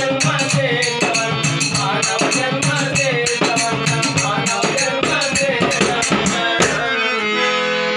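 Folk ensemble of frame drum, small hand cymbals and harmonium playing a fast, even beat under singing. About six and a half seconds in, the drum and cymbals stop and the harmonium holds a sustained chord.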